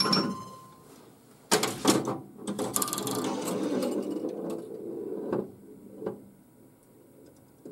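A 1978 Bally Black Jack pinball machine in play: mechanical clicks and a sharp knock about a second and a half in, then several seconds of steady rattling and clatter from the ball and playfield mechanisms, which dies away near the end.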